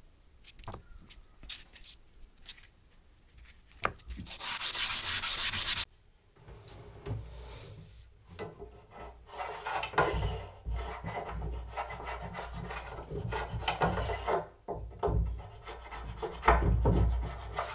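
Metal bullnose plane with its sole rubbed on sandpaper over a glass plate, lapping it flat, in a steady scrubbing that stops abruptly about six seconds in. Then the plane is pushed in repeated strokes along a wooden board, taking shavings.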